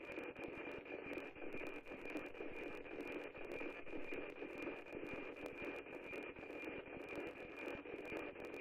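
NOAA-18 weather satellite's APT image signal coming through a radio receiver: a steady high tone under hissing static, with fast clicking. The tone is the 2.4 kHz image subcarrier, sounded while the image is being decoded.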